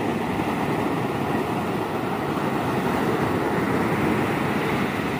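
Steady, even rush of surf and wind.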